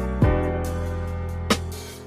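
Background instrumental music: sustained pitched tones with deep drum hits twice.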